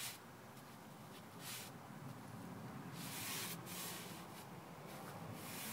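Stain-loaded 2.5-inch Purdy paintbrush swishing across cedar boards as waterborne stain is worked into the wood: a few soft, brief strokes, the longest about three seconds in.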